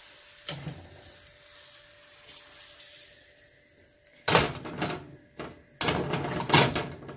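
A non-stick appam pan scraping and sliding on the gas hob's metal pan support as it is tilted and swirled to spread the batter. It comes in two loud stretches in the second half, after a few quiet seconds.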